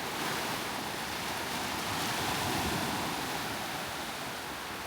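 Gentle surf on a sandy beach: small waves breaking and washing in, a steady wash that swells and eases slightly.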